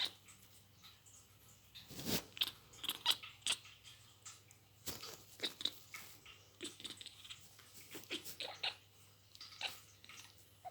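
Kitten making a run of short, irregular clicks and squeaky snaps, the odd noises she makes in place of meowing.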